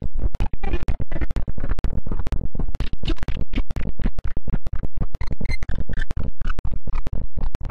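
Loud, heavily distorted processed audio, chopped into short pieces by quick dropouts several times a second, the stuttering sound of a 'G Major' video-effects edit.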